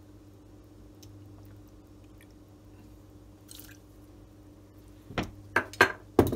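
Red wine vinegar tipped from a small measuring glass into a saucepan of brown sugar, a brief faint splash about three and a half seconds in, over a low steady hum. Near the end, several sharp knocks, much louder than the pour.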